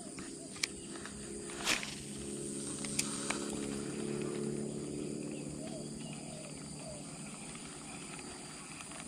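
A cast with a baitcasting rod: a short swish about two seconds in, amid a few light clicks. A low drone swells after it and fades over the next several seconds.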